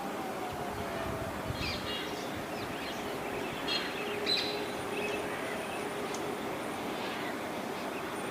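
Birds chirping outdoors: a scatter of short, high chirps and calls, the loudest about four seconds in, over a steady low hum and background noise.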